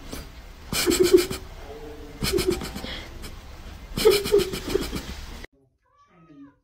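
Tabby cat making short, raspy, laugh-like bursts of rapid pulses while being scratched under the chin, three times about a second and a half apart. The sound cuts off suddenly near the end.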